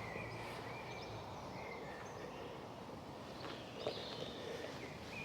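Faint outdoor background with scattered distant bird chirps.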